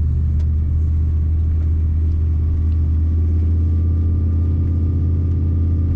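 Truck engine running steadily while driving, a constant low drone with no change in pace.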